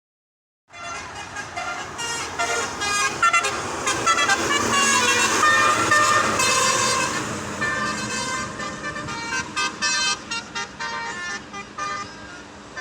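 Basuri 'telolet' musical air horn, several trumpets playing a quick melody of changing notes over passing highway traffic. It starts about a second in.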